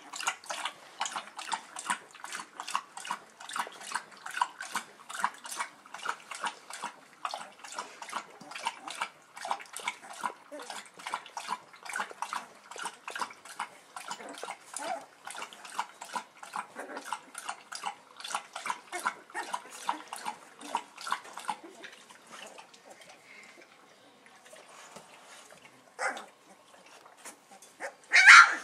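Two-week-old bullmastiff puppies squeaking in short, quick cries, about four a second, for most of the stretch. After a quieter spell, two louder cries near the end, the last the loudest.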